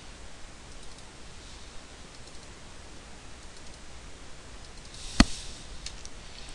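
One sharp computer mouse click about five seconds in, with a few fainter clicks before and after it over a steady faint hiss.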